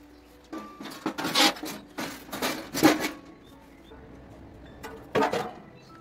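Thin sheet-metal wood-stove parts clanking and scraping as the stove's top section is lifted off and handled. There are several bursts of clatter, the loudest near the middle and another about five seconds in.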